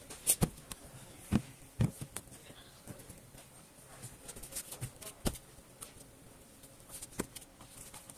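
Plastic housing parts of a mini projector being handled and pressed together: a series of sharp clicks and knocks, the loudest in the first two seconds, then a few scattered taps.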